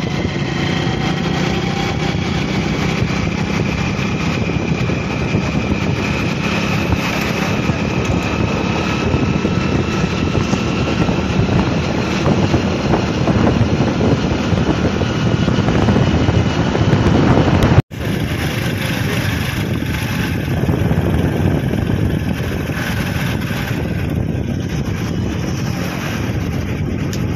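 Vehicle travelling at speed along a highway: steady engine, road and wind noise, with a faint whine rising slowly as it gathers speed. About eighteen seconds in it cuts off abruptly, and a steady rushing noise follows.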